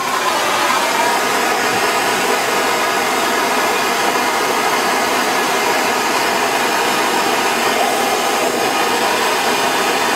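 Handheld gas torch burning with a steady hiss, its flame heating a copper end cap on half-inch copper pipe for soldering.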